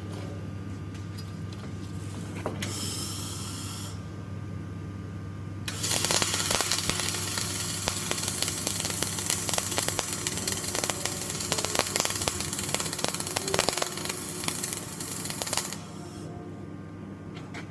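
Flux-cored arc welding: the arc strikes about six seconds in and crackles with many sharp clicks for about ten seconds, then stops suddenly. A steady low hum of machinery runs underneath.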